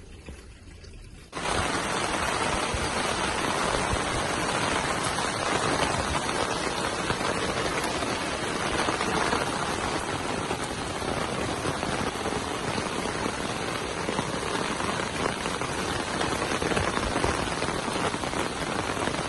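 Heavy rain pouring down onto wet pavement and puddles, a steady dense hiss that begins abruptly about a second in.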